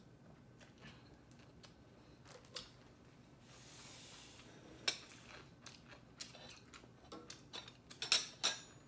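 Small clicks and taps of objects being handled at a table, with a soft rustle about four seconds in; the clicks come faster near the end.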